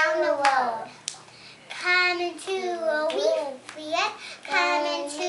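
Two young children chanting a call-and-response action song in sing-song voices, with hands slapping their knees or clapping now and then.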